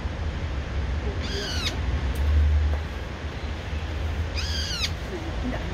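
Brown-eared bulbul calling: two short calls about three seconds apart, each rising then falling in pitch.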